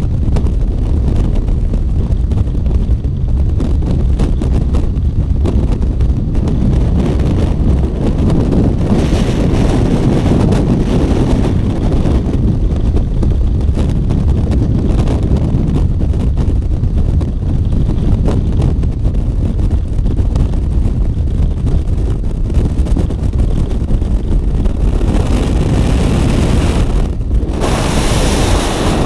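Loud, steady freefall wind rushing over an action camera's microphone during a skydive. The hiss grows brighter for a few seconds about a third of the way in, and again near the end after a brief dip.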